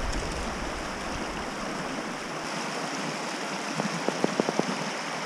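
Shallow, rocky river rushing over stones in riffles and rapids: a steady wash of moving water, with a short run of light clicks about four seconds in.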